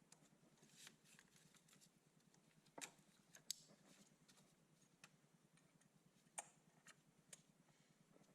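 Near silence: faint room tone with a low hum and a few scattered, faint clicks and taps.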